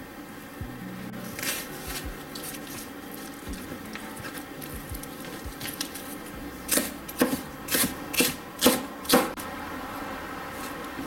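Kitchen knife cutting green onion on a wooden cutting board: light knocks and handling at first, then about seven sharp cuts against the board at roughly two a second, starting about seven seconds in.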